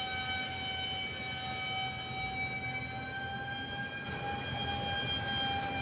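RC model F-22 Raptor jet's motor whining steadily in flight, a thin high-pitched whine with a few overtones.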